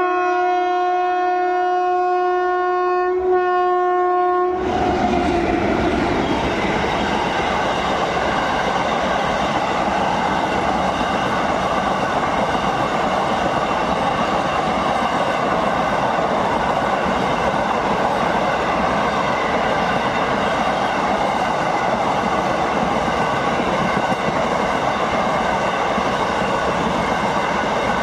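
Indian Railways train horn held in one long, steady blast for about four and a half seconds. It then gives way to the loud, steady running noise of the train's wheels and wagons passing on the rails.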